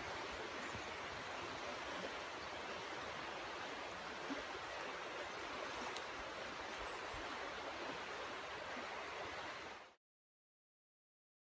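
Steady rush of a fast-running stream, swollen and muddy after rain, cutting off abruptly about ten seconds in.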